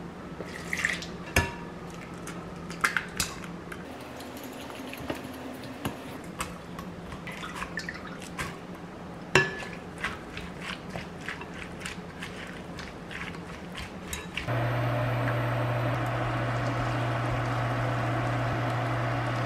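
Okonomiyaki batter with shredded cabbage stirred in a glass mixing bowl with a wooden spoon: scattered clinks and taps against the glass. About three-quarters of the way through, it switches suddenly to batter sizzling steadily in a hot frying pan, over a low steady hum.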